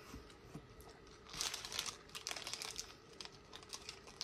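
Paper hash-brown sleeve crinkling as it is handled and raised for a bite: a cluster of soft crackles about a second and a half in, thinning to scattered ticks a second or so later.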